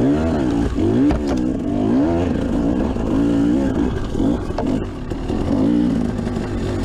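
KTM 300 XC two-stroke dirt bike engine, ridden on a trail with the throttle worked on and off, its pitch rising and falling about once a second.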